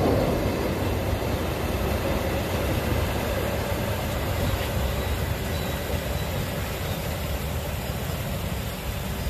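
Diesel-hauled passenger train running away along the track, its rumble slowly fading as it draws off, over a steady rush of irrigation water.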